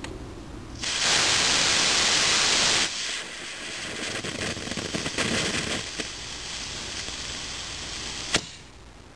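Estes C6-5 model rocket motor firing: about a second in it ignites into a loud, steady rushing hiss for about two seconds (the thrust burn), then a quieter crackling hiss through the delay, and near the end a single sharp bang as the ejection charge fires.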